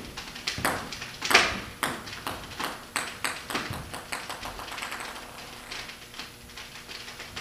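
Irregular sharp clicks and pings from the capped liquid-nitrogen ping pong ball bomb in the garbage can while pressure builds inside, several a second at first and thinning out later, the loudest about a second in.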